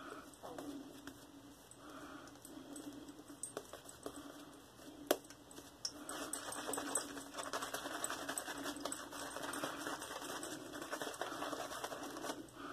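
Shaving brush working soap lather on the face: a faint, wet crackling and squishing, sparse at first and thicker and steadier from about halfway.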